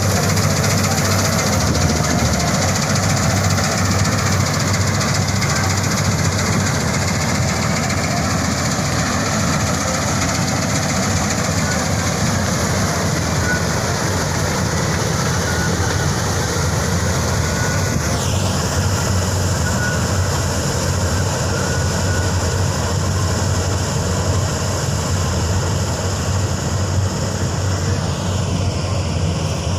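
Combine harvester running steadily: a loud, continuous machine noise from its engine and working parts, with a slight shift in its higher sound about two-thirds of the way through.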